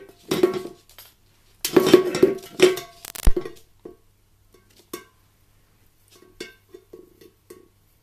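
Tin watering can clattering and scraping on a wooden floor as an African grey parrot shoves and bites at it, the metal ringing. There is a sharp knock a little over three seconds in, then a few lighter taps on the can.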